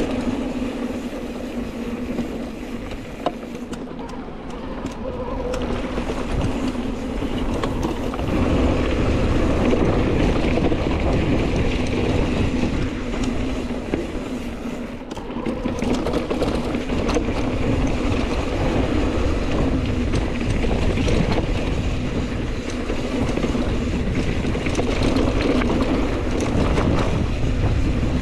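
Mountain bike rolling down dry dirt singletrack: tyres running over the hardpack with wind rushing on the camera microphone and a steady hum underneath. It gets louder about eight seconds in.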